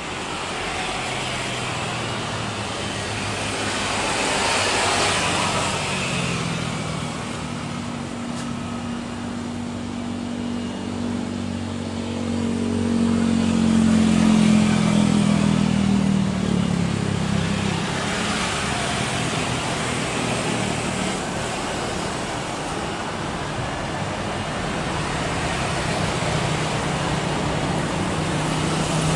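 A Boeing 737-800's jet engines at low taxi power: a steady drone with a low hum under it, swelling to its loudest about halfway through and easing off again.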